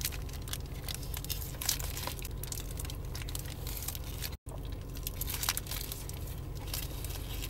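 Close-up eating sounds of a cheeseburger: biting and chewing, with the paper wrapper crinkling in the hands, over a steady low hum. The sound cuts out for an instant a little past four seconds in.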